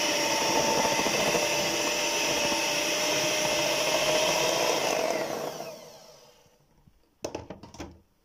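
Electric hand mixer running steadily, its beaters creaming butter and powdered sugar in a glass bowl, then switched off about five seconds in and winding down. A couple of short knocks follow near the end.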